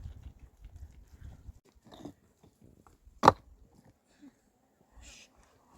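Scattered small knocks and rustles, with one sharp knock a little past halfway; a low rumble at the start stops after about a second and a half.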